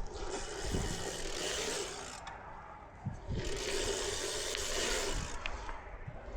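Bicycle tyres rolling and scraping over wet, slippery dirt, with wind rumbling on the microphone. The rolling noise drops quieter for about a second just after two seconds in, then picks up again.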